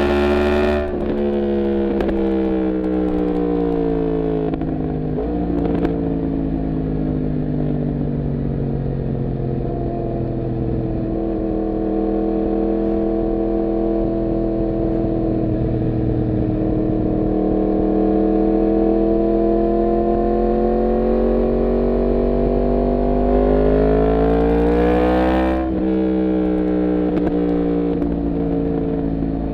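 Yamaha MT-10's crossplane inline-four engine running under way, its note sliding slowly with road speed. It shifts up about a second in and about five seconds in, and near the end it revs up and shifts up again with a sharp drop in pitch.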